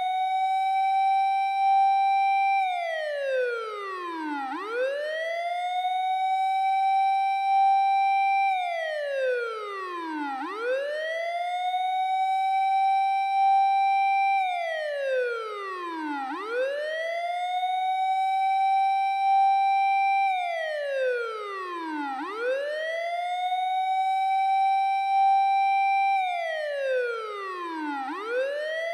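Japanese fire engine siren played from a siren-simulator app, wailing in a steady six-second cycle. The pitch rises, holds high for about two seconds, then slides down, about five times over.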